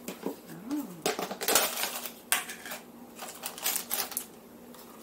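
Irregular clicks, knocks and short scrapes of a plastic margarine tub and a spoon being handled against plates on a table.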